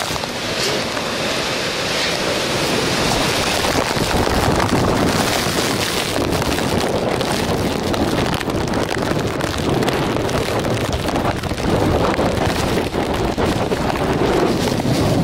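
Strong typhoon wind gusting and buffeting the microphone in a loud, continuous rush that swells and eases, with rain mixed in.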